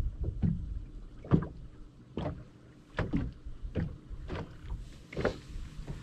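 Small waves slapping against the hull of a bass boat: irregular splashes about once a second, the strongest about a second and a half in, over a low wind rumble on the microphone.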